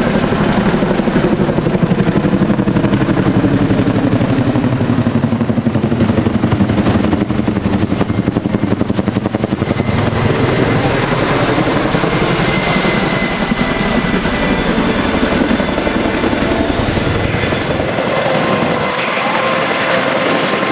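CH-47 Chinook tandem-rotor helicopter flying low overhead, its two rotors making a fast, steady chopping beat with a steady high whine above it.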